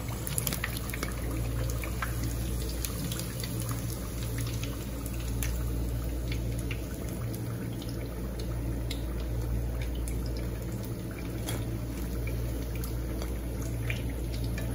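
Batter-coated chicken strips deep-frying in oil in a pan: a steady bubbling sizzle with scattered crackles and pops, over a low steady hum.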